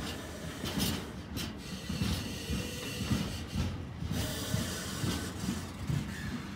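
Freight train of empty container flat wagons rolling past, wheels and wagon bodies giving an uneven run of low rumbling clunks, roughly two a second. Brief high hissing squeals from the wheels come about a second in.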